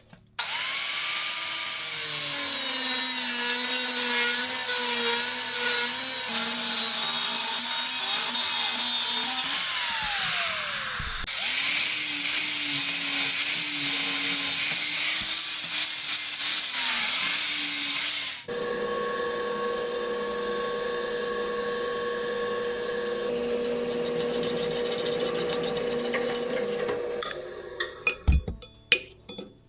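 Power tool cutting steel plate: two long cuts under load, the motor's pitch wavering as it bites, with a falling wind-down between them. After the second cut it runs on more quietly with a steady whine, and a few sharp knocks come near the end.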